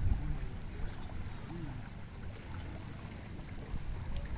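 Lakeshore ambience: wind rumbling on the microphone over small waves lapping at a gravel shore.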